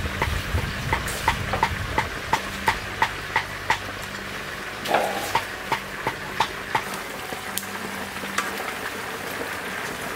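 Sharp, regular knocks, about three a second, pausing a little after four seconds in, then resuming and thinning out, over a steady low hum.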